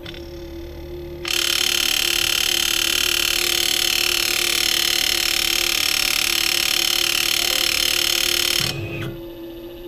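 An electric motor starts abruptly about a second in and runs with a loud, steady high whine for about seven seconds, then cuts off.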